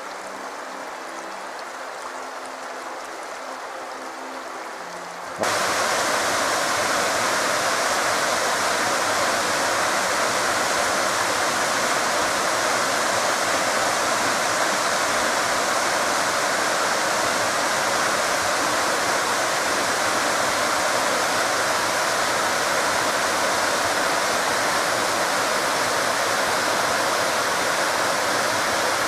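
Fast-flowing mountain river rushing, a steady loud wash of water. It comes in abruptly about five seconds in, after a quieter stretch of fainter outdoor noise.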